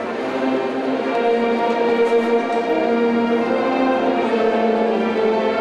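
Orchestral music with long held chords that change about once a second.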